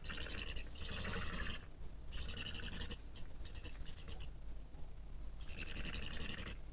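European badger calling in three bursts of rapid, rasping chatter, each a second or so long, with a longer pause before the last.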